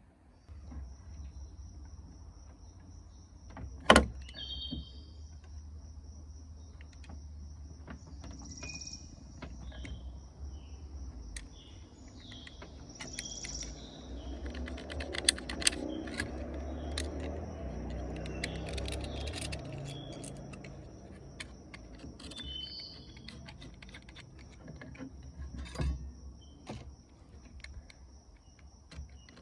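An insect trilling steadily at a high pitch, with short bird chirps over it. A single sharp knock comes about four seconds in, and a stretch of rough scraping or rustling noise rises and fades in the middle.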